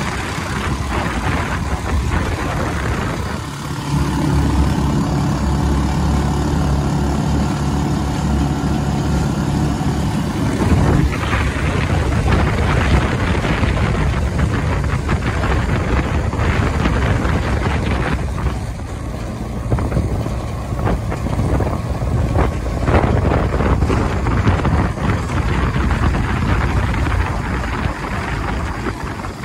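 Motorcycle engine of a tricycle (motorcycle with sidecar) running under way, heard from the sidecar with wind and road noise. The engine note holds steady for several seconds early on, then gives way mostly to rough wind and road rumble.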